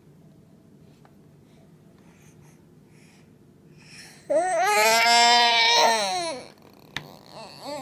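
A baby's loud, high-pitched cry about four seconds in, held for around two seconds, followed by a shorter cry near the end.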